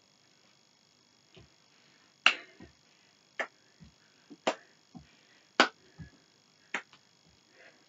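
Five sharp hand claps, about one a second, keeping time to a dance routine. Soft thuds of feet stepping on the floor fall between them.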